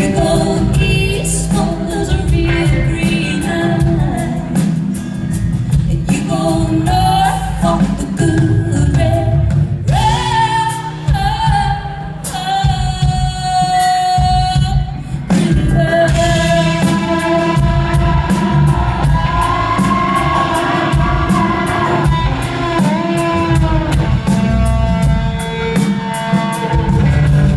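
Live band music with long, held sung notes over a steady low end, heard with the echo of a large hall.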